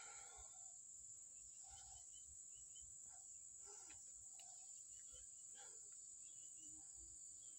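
Near silence, with a faint, steady high-pitched insect chorus and a few faint short chirps.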